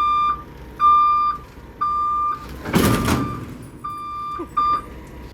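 Vehicle backup alarm beeping about once a second with a steady high tone, broken about midway by a short loud rushing hiss.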